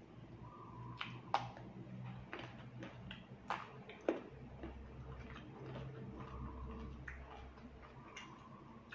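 Close-up eating sounds: chewing on rice noodles in curry, with a dozen or so sharp clicks and taps scattered through, over a faint steady low hum.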